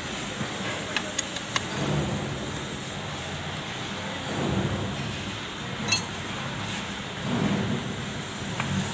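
Light metallic clicks and clinks from handling the brake drum and parts of a Kubota B6001 tractor's drum brake, a few close together early on and one sharper clink about six seconds in, over a steady background hiss.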